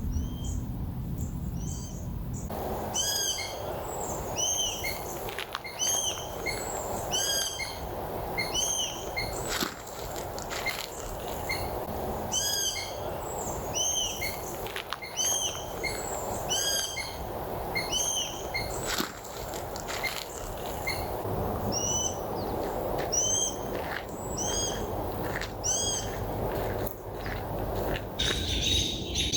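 Birds calling in the woods: short high chirps repeated in quick runs, over a steady low rushing background.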